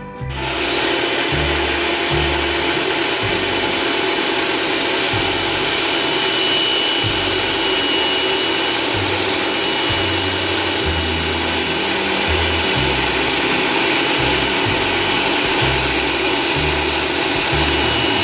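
Small table saw fitted with a dado blade stack, running steadily as it cuts a groove into a wooden board. A loud, even whine and rush that starts abruptly just after the beginning.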